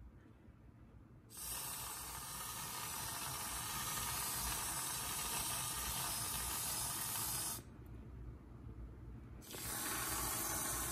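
Aerosol can of whipped cream hissing as it sprays, in two long sprays: one starting about a second in and lasting about six seconds, then, after a pause of about two seconds, a second one near the end.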